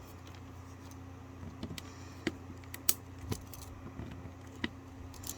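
Irregular small metallic clicks and scrapes of a pocket knife working at a plastic surge protector housing, densest in the middle stretch, over a steady low hum.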